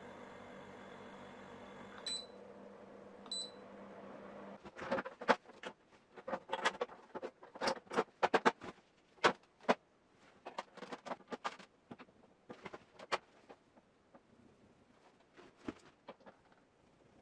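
Corona CD-P6318 dehumidifier running with a steady hum, two short high beeps, then the hum stops about four and a half seconds in. A long series of sharp clicks and knocks follows, thinning out near the end.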